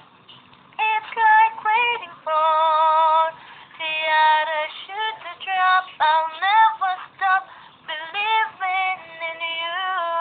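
A high female voice singing unaccompanied, in phrases of long held notes with vibrato and quick runs, with short silent breaks between them.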